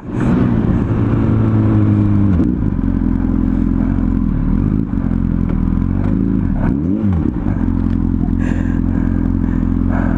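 Honda CBR1000RR inline-four engine dropping in revs over the first couple of seconds as the bike slows, then running steadily at low revs, with a short blip of the throttle rising and falling about seven seconds in.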